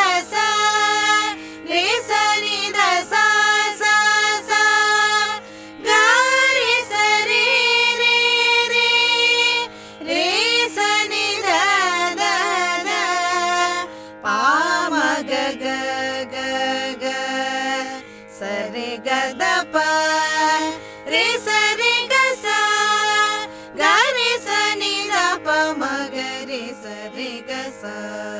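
Female voice singing a Carnatic swarajathi in raga Bilahari, in phrases of gliding, ornamented notes with short breaks between them, over a steady drone.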